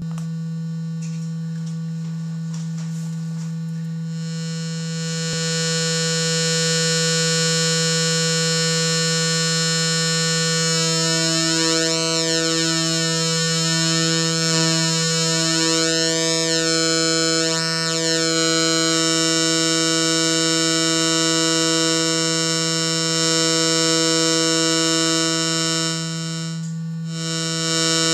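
Modular synthesizer oscillators sounding a low steady tone: a plain sine wave at first, turning buzzy about four seconds in as a square wave is mixed in. From about 11 to 19 seconds the pulse width is swept, so the tone's colour shifts with a moving, phasing sweep before it settles again. The tone dips briefly near the end.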